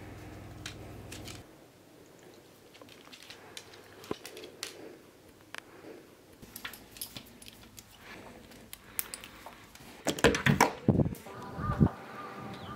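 Background music fades out about a second and a half in, leaving soft scattered clicks and rustles. Near the end come several loud low thumps on the microphone.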